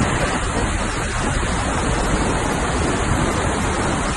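Steady, dense rush of a large waterfall plunging into a gorge.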